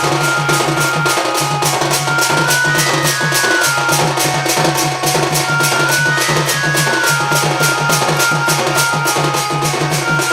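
Sambalpuri folk music for a danda nacha dance-drama entry: fast, even percussion at about four or five strokes a second over a steady low drum line, with a high melody of short held notes.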